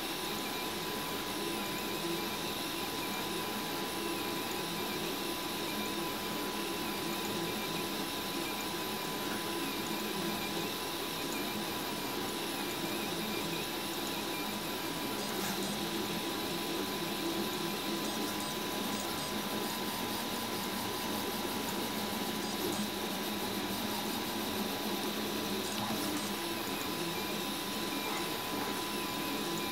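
RepRap Huxley 3D printer printing, its stepper motors whirring as the extruder head moves over the part, with a steady high whine.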